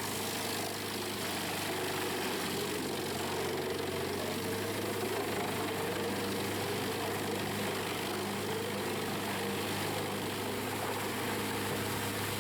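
Diesel engine of an industrial drum wood chipper running steadily, an even drone with no bursts of chipping.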